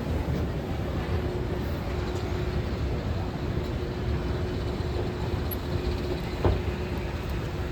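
Steady low rumble of background machinery or traffic noise under a faint constant hum, with a single sharp knock about six and a half seconds in.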